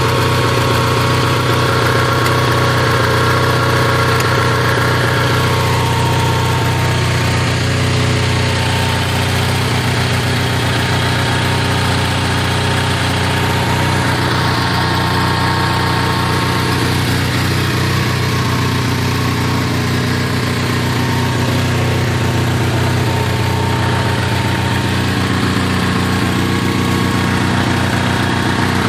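Onan NH 6.5 kW gasoline generator engine running at a steady speed, an even low drone.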